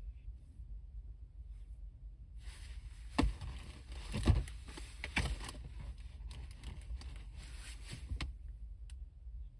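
Rustling and handling noise with a few sharp knocks over a steady low rumble; the rustle starts a couple of seconds in and dies away near the end, and the loudest knock comes a little past the middle.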